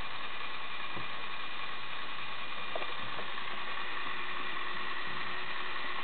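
Lego Technic 42055 bucket wheel excavator's electric motor running its plastic gear train: a steady whir with a few faint clicks, and a lower steady tone joining about halfway through.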